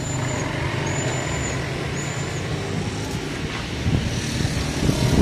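Steady road traffic rumble, with three short, thin high-pitched tones in the first two and a half seconds and a few light knocks near the end.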